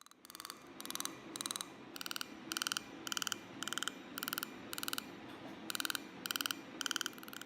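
Fotona NightLase laser firing in short buzzing pulse trains, about two a second, over a steady hum from the laser unit that starts at the beginning.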